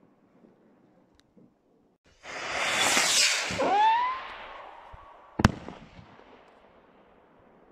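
Firework shell going up with a loud hissing rush and a rising whistle, then bursting with one sharp bang about five and a half seconds in.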